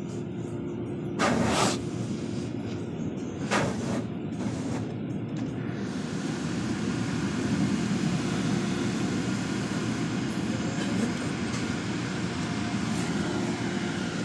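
Automatic car wash running over the car, heard from inside the cabin: a steady low rumble, with brief whooshing sweeps about a second in and again near four seconds, and a broader hiss that fills in from about six seconds on.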